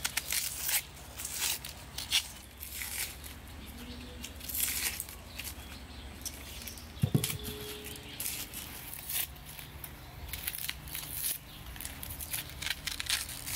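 Onions being peeled by hand with knives: dry papery onion skins crackling and tearing, and a plastic bag rustling, in irregular crisp crinkles. A single louder thump about seven seconds in.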